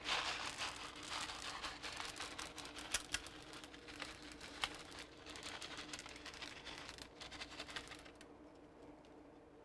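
Crinkling of a foil bag and the light patter of candy sprinkles being shaken out over brownie batter in a baking pan, with many small clicks; it dies away about eight seconds in.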